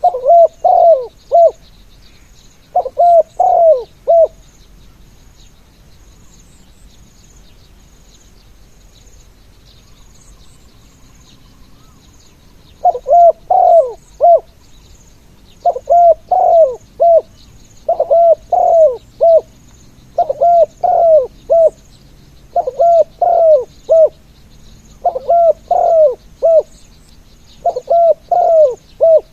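A spotted dove cooing in repeated phrases of four or five notes each: two phrases, a pause of about eight seconds, then a phrase roughly every two and a half seconds. A faint, steady high chirping runs underneath.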